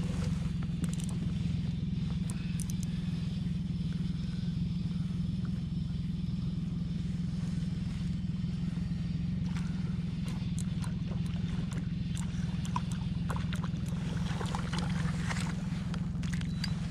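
Boat motor running steadily with a low hum. Scattered light clicks and taps come in over the second half.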